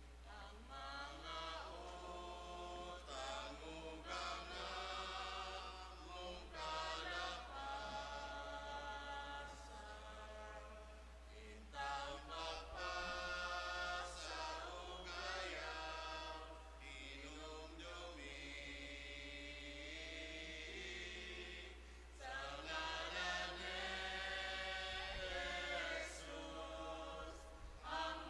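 Voices singing a chant-like hymn in phrases, the kind sung as the entrance hymn before Mass, over a steady low electrical hum.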